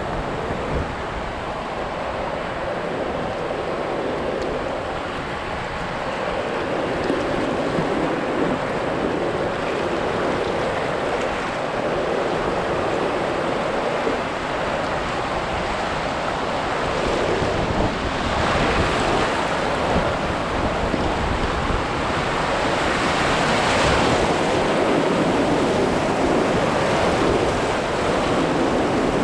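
River rapids rushing and splashing around an inflatable pontoon boat, with wind buffeting the microphone. Two louder surges of splashing come in the second half.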